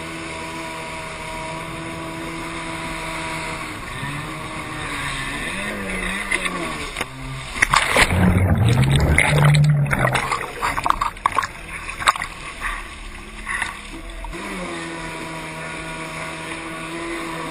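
Kawasaki 550 jet ski's two-stroke twin engine running at a steady pitch, which wavers up and down after a few seconds. About eight seconds in, a loud rush and splash of water drowns it as the rider falls in. Near the end the engine runs steadily again.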